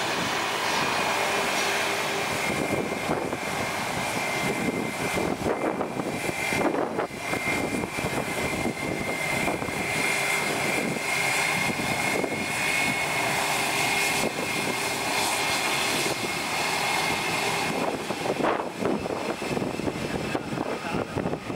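Airbus A320 jet engines whining steadily at taxi power as the airliner taxis and turns onto the runway, a thin high tone over a broad rush, with wind buffeting the camera's built-in microphone.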